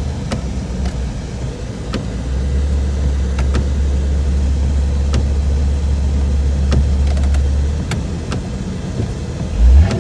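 1992 Jeep Cherokee XJ driving through deep snow, heard from inside the cabin: a low engine and tyre rumble that grows louder about two seconds in and drops back near the end, with a single thump just before the end.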